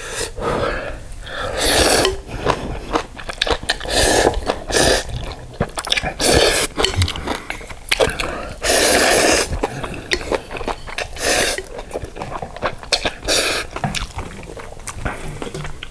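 A person eating jjajang ramyeon close to the microphone: repeated loud noodle slurps and chewing, the longest slurp a little past the middle.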